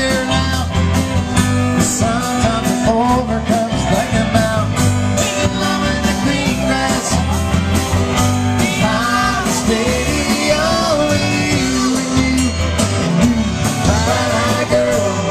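Live band playing a song: a man sings lead over strummed acoustic guitar, with electric bass and drums keeping a steady beat.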